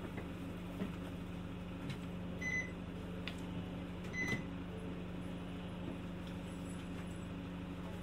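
Inside a city bus cabin: the engine runs at a steady, unchanging hum, and two short high beeps sound, about two and a half and four and a half seconds in.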